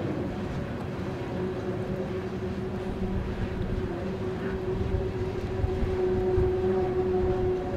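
Loaded coal hopper cars of a heavy freight train rolling slowly up the grade: a low rumble of wheels on rail with a steady droning tone over it.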